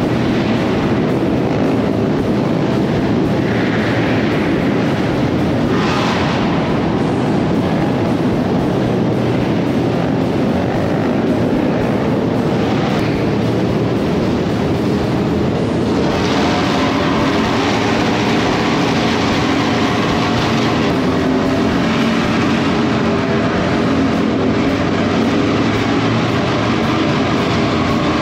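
Harley-Davidson motorcycles running steadily on the road, engine rumble mixed with road and wind noise; the sound shifts about sixteen seconds in.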